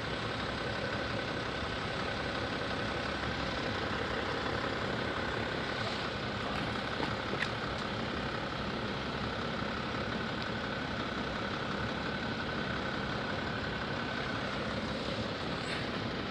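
Steady engine noise of road vehicles idling, with a faint steady high whine that stops near the end.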